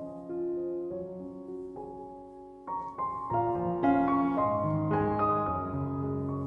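Background piano music, a slow melody over held chords that grows fuller about three seconds in.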